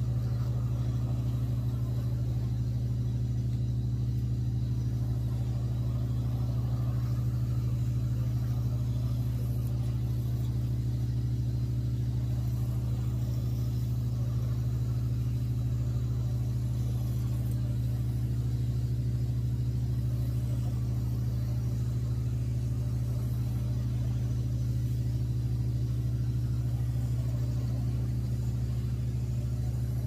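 Carpet-cleaning machine running with a steady low hum while it supplies the pre-spray hose.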